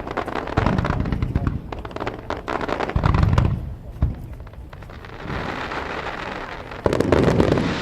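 Aerial fireworks going off: dense crackling pops, with a deep boom about three seconds in and another loud burst near the end.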